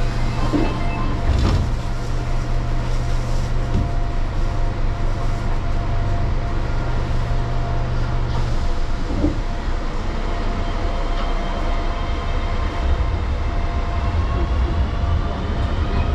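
Inside a Keio Line electric train standing at a station: a steady low hum of the train's equipment, which cuts off a little over halfway through. Near the end the train starts to pull away, and several rising tones climb together: the whine of its inverter-driven traction motors accelerating.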